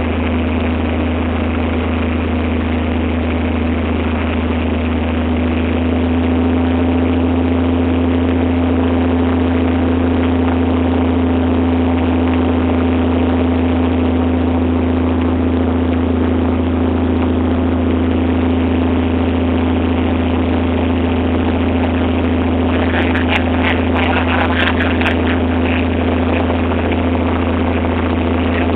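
Light aircraft's engine and propeller droning steadily, heard from inside the cockpit, getting slightly louder about six seconds in. A brief patch of crackling comes through about three quarters of the way in.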